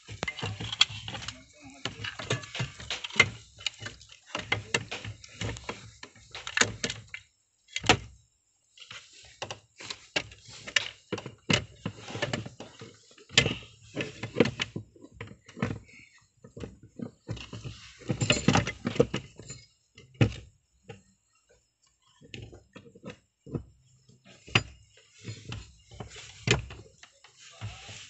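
Irregular clicks, knocks and metallic clinks of wrenches and parts being handled under a car's dashboard while the clutch master cylinder is being refitted at the clutch pedal.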